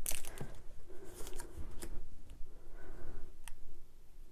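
Small cardstock pieces being handled: paper rustling with a few sharp, separate clicks and taps.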